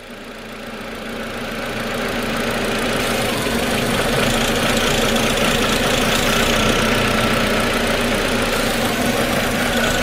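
VW Passat engine idling with a vacuum leak at a broken plastic vacuum tee. A finger is held over the leak, so the engine runs much better. The sound grows louder over the first few seconds, then holds steady.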